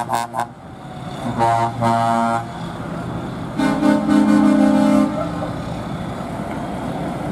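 Lorry air horns sounding over a diesel engine running steadily. There are a few quick toots at the start, a blast of about a second about a second and a half in, then a longer blast around four seconds in.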